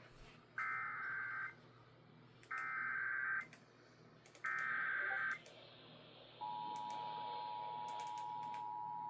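Emergency Alert System header: three screeching digital data bursts of about a second each, a second apart, followed about two-thirds through by the steady two-tone EAS attention signal. They open a relayed flash flood warning.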